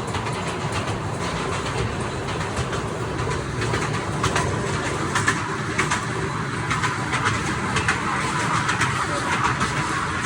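Small ride-on train running, a steady rumble with irregular clicks and clatter from its wheels.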